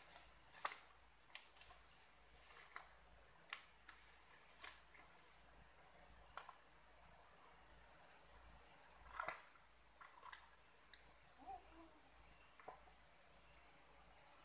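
Steady, high-pitched chorus of insects droning without a break, with a few faint scattered clicks and snaps.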